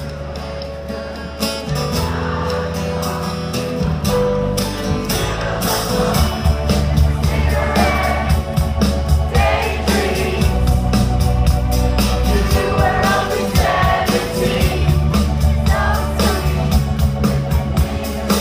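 Live rock band playing, heard from within the audience: drums, bass and guitars with singing, growing louder over the first few seconds.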